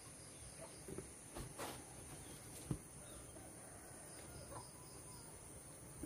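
Faint rural outdoor ambience: insects chirring high and thin, with a few small ticks and one sharper click a little under three seconds in.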